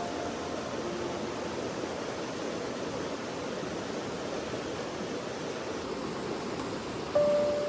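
Steady rushing of flowing river water. Music comes back in near the end.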